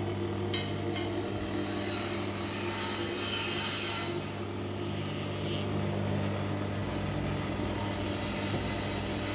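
Electric screw oil expeller running while pressing sacha inchi seeds: a steady low hum with a rough, rasping rub on top as the screw crushes the kernels and forces press cake out of the head.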